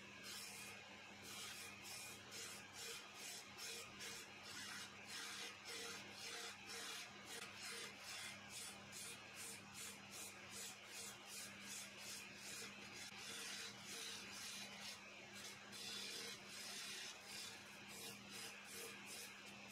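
A wood lathe running with a steady hum while a hand-held turning chisel scrapes a spinning stack of wooden discs, giving a hissing cut that pulses in a regular rhythm.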